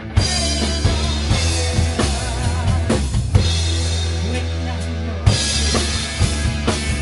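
Rock band playing an instrumental passage: drum kit with bass drum and snare, electric guitars and a strong low bass line. There is a loud drum and cymbal hit about five seconds in.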